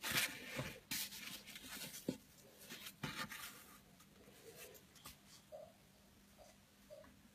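Scratchy rustling and handling noise, with a click about two seconds in, as a hand picks up a small hairless newborn animal. Three faint short squeaks follow in the second half.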